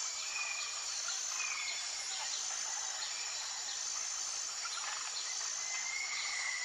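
Tropical jungle ambience: a steady, high-pitched drone of insects, with a few short bird whistles and chirps over it, one of them longer and falling near the end.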